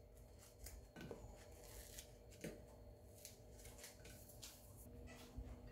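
Faint irregular crackling and rustling of a stale, day-old baguette being torn apart by hand into small pieces, the dry crust snapping as it breaks.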